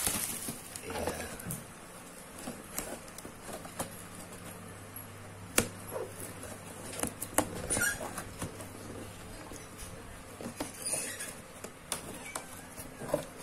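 Packing tape on a cardboard box being slit and scraped open with a small metal tool, with scratching, rustling and sharp clicks of cardboard being handled; the loudest clicks come about halfway through. A low steady hum sits underneath for much of the time.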